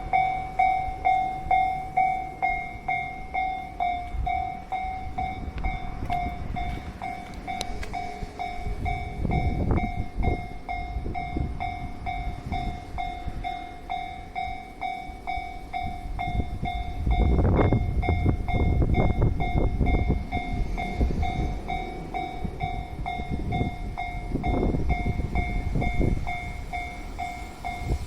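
Japanese railway level-crossing alarm ringing its pulsing electronic 'kan-kan' tone about twice a second, while a train passes over the crossing with a rumble and wheel clatter that is loudest a little past the middle.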